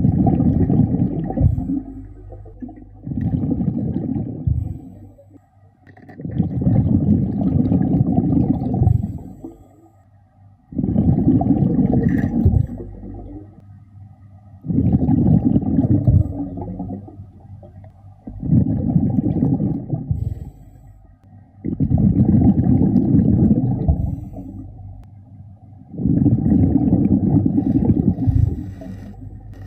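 A diver breathing underwater through a regulator: eight bursts of exhaled bubbles, each about two seconds long, one every three to four seconds, with quieter gaps between.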